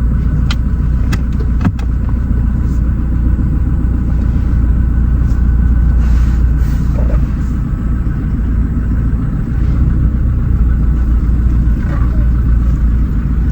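Car being driven, a steady heavy low rumble of engine and tyres heard from inside the cabin, with a few sharp knocks in the first couple of seconds.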